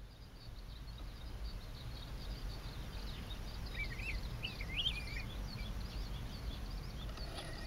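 Wetland ambience: a constant wash of faint, high bird chirps over a low steady rumble. About four seconds in, a nearer bird gives a short run of wavering whistled notes, and there is a brief sharp sound near the end.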